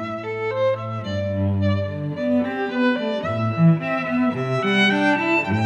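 Background music for bowed strings, a melody moving through new notes every half second or so over lower sustained notes.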